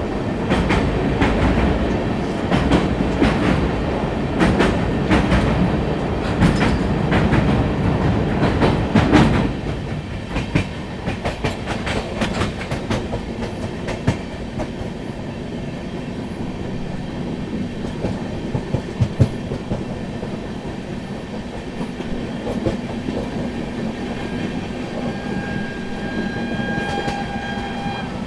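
Indian Railways train running on the rails. Dense, loud clickety-clack of wheels over the rail joints drops about nine seconds in to a quieter, steady rumble with only occasional knocks. A faint steady high tone comes in near the end.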